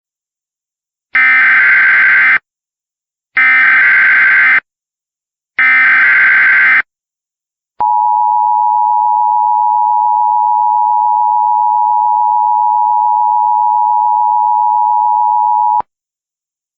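Emergency Alert System signal: three identical bursts of shrill, warbling digital data tones (the SAME header), each about a second long, then the EAS attention signal, a steady two-tone beep held for about eight seconds that cuts off sharply. Together they open a new emergency alert.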